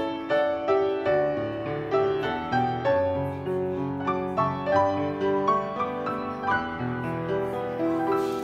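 Background music: a piano playing a flowing melody of single notes and chords, about two or three notes a second.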